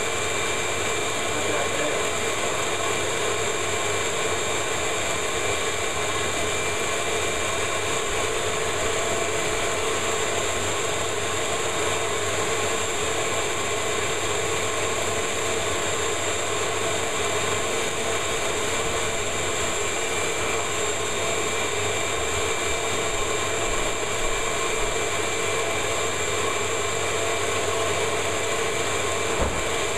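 Ridgid shop vacuum running steadily, a constant rush of air with a steady whine over it.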